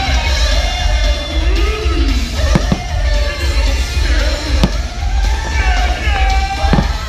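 Fireworks show soundtrack with singing, played loudly over the park's speakers above a deep steady rumble, with sharp firework bangs cutting through: two close together about two and a half seconds in, another past the middle, and one near the end.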